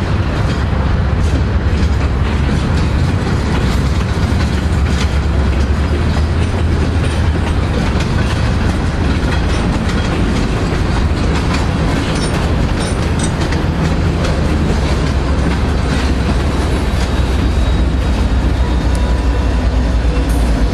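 Diesel-hauled train running past close by: a heavy, steady low rumble with wheels clicking over rail joints and a faint thin wheel squeal at times.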